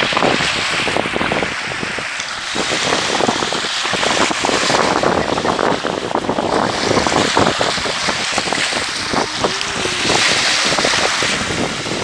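Small sea waves washing onto a sandy shore, surging and easing, with wind buffeting the microphone throughout.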